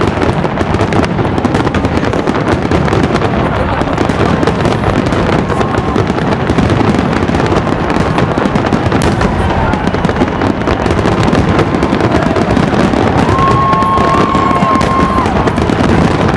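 Fireworks display in a dense, continuous barrage of bangs and crackling with no let-up. Near the end a steady whistle is held for a couple of seconds.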